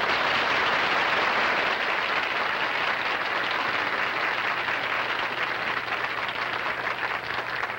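Studio audience applauding, a steady dense clatter of many hands that eases off slightly toward the end.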